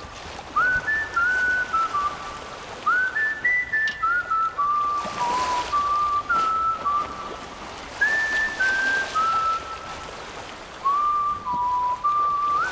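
Outro music carried by a whistled tune: short phrases of held notes, each starting with a small upward scoop and stepping down in pitch, with soft rushing swells behind it.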